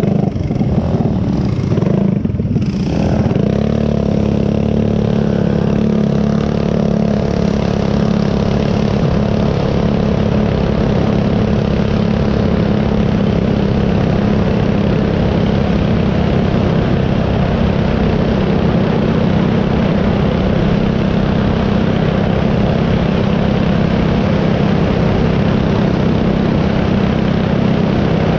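Single-cylinder 212cc mini-bike/ATV engine, governor deleted, with a Mikuni carburettor and aftermarket exhaust, running under way with a steady rush of wind on the microphone. Its note shifts briefly about two to three seconds in, then holds one steady pitch.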